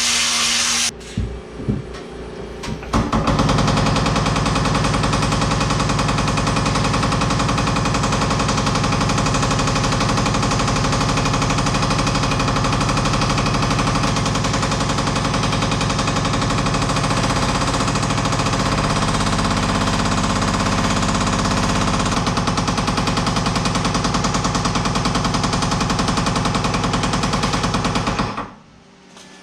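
A tool running with a rapid, steady rattle, starting in short bursts and then running on without a break until it stops shortly before the end.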